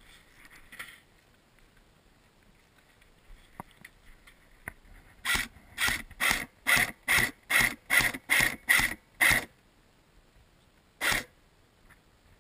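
Airsoft gun firing a quick string of about ten single shots, roughly two and a half a second, then one more shot near the end.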